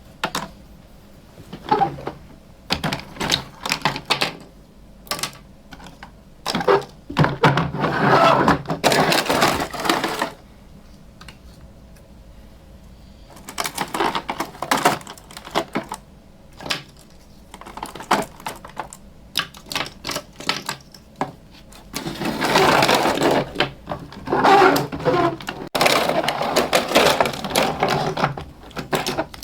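Small plastic toy pieces being handled: scattered sharp clicks and taps, with two longer stretches of dense clattering and rustling, one near the start and a longer one near the end.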